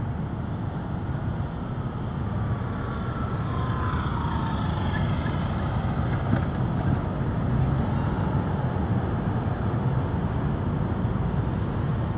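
Steady rumble of road traffic, with a passing vehicle's faint falling whine about four seconds in.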